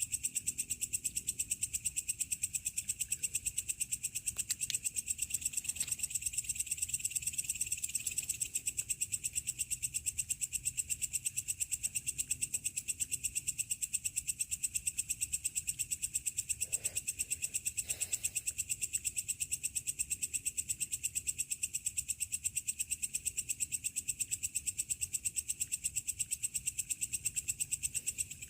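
Chorus of night insects, such as crickets, trilling steadily in fast, even pulses at two high pitches.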